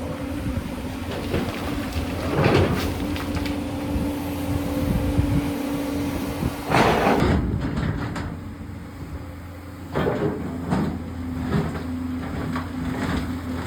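A JCB 245 HD LR long-reach excavator's diesel engine running steadily, with the bucket scraping and knocking against rock; the loudest scrapes come about two and a half, seven and ten seconds in.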